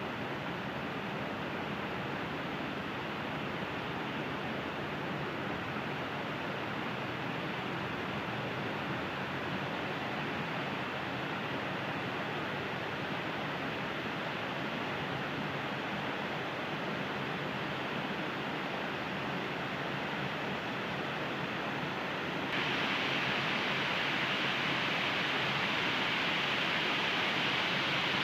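Steady rushing of flowing water in a small canal, a little louder and brighter from about 22 seconds in.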